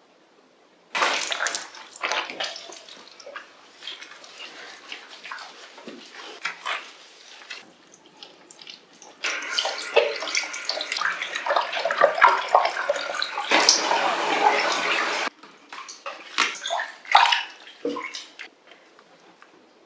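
Water splashing and sloshing in a small plastic tub as a cat is washed in it. From about nine seconds in, a handheld shower head sprays water steadily for about six seconds, then cuts off suddenly, and the splashing goes on.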